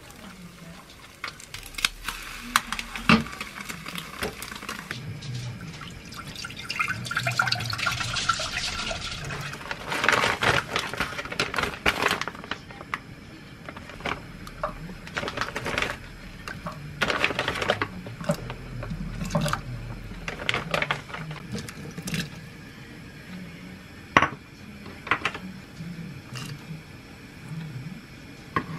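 Kitchen cooking sounds: liquid poured into a saucepan, with scattered clinks and knocks of pots and utensils.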